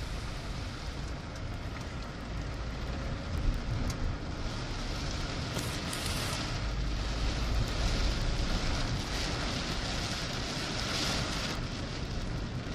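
Steady low rumble of a car driving on a wet road, heard from inside the cabin, with the hiss of rain and tyre spray. The hiss swells briefly about six seconds in and again near the end.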